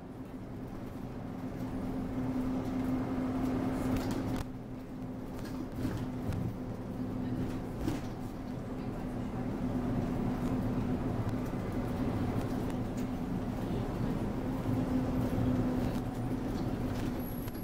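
Interior sound of an Alexander Dennis Enviro200 MMC single-deck bus under way: a steady engine and drivetrain drone with road noise, dipping briefly about four seconds in, then building again.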